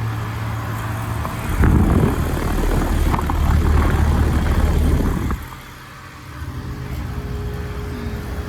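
Outdoor heat pump unit running with a steady hum while frozen up, iced over in heat mode. From about a second and a half in until about five seconds, a louder rushing noise covers the hum, then cuts off suddenly.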